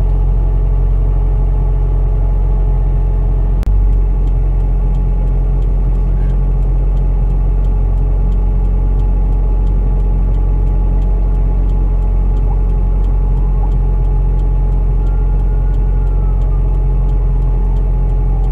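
Steady low engine and road drone heard from inside a car's cabin, with one short knock about four seconds in and faint ticking about twice a second. In the second half a faint ambulance siren can just be heard wailing; it is unusually quiet.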